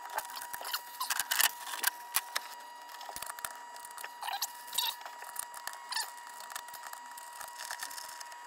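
Hands pressing and working around the rim of a stainless steel sink being seated in fresh caulk: a string of small clicks, taps and scrapes, over a faint steady high tone.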